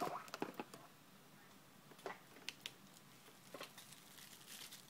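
Faint scattered clicks and light taps of small phone parts and tools being handled on a workbench, several in the first second and a few more later, with a soft rustle near the end.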